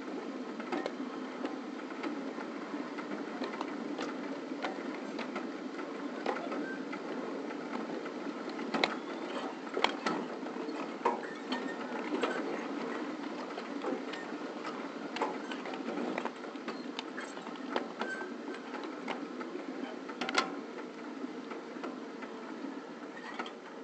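A ridable 7.5-inch gauge model train running along the track: a steady mechanical rattle from the running gear, broken by irregular sharp clicks and knocks from the wheels on the rails. The loudest knocks come about ten and twenty seconds in.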